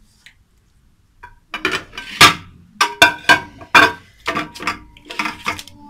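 Aluminium cooking pot clanking and ringing as raw meat is rubbed and turned in the marinade inside it. About ten sharp knocks start about a second and a half in, the loudest a little after two seconds.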